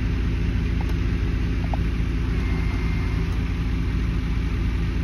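Bucket truck's engine running steadily at idle, a low even drone.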